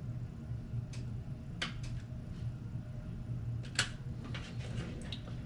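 Steady low hum of room noise, with scattered light clicks and taps of small plastic switch parts being handled and pressed together while they are glued.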